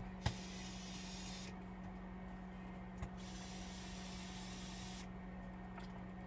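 Two short hissing sprays, each beginning with a click, the first about a second long and the second about two seconds, over a steady low hum.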